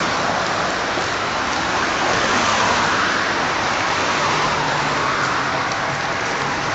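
Steady rushing noise of road traffic, with a low vehicle engine hum joining about halfway through.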